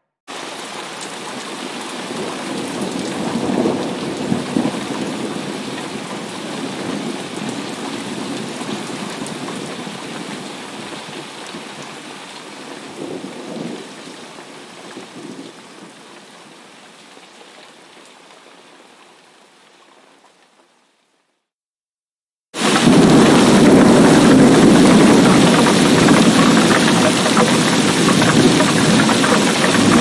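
Heavy rain with thunder rumbling in the background, the rumble swelling a few seconds in and again about halfway through, the whole track slowly fading out to silence about two-thirds of the way in. After a two-second gap, a louder, denser downpour of a heavy rainstorm starts abruptly.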